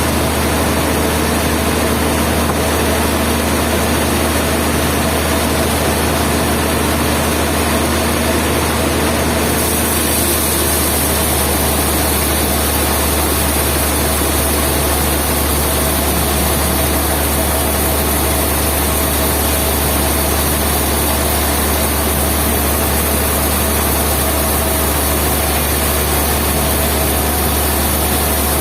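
Steady, loud running noise of heavy sawmill machinery, a constant low hum under dense machine noise; the sound changes abruptly about nine seconds in.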